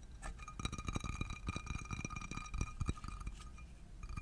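Rapid tapping on a cooking pot, the pot ringing on with a steady high tone over the taps. The ringing dies away briefly near the end.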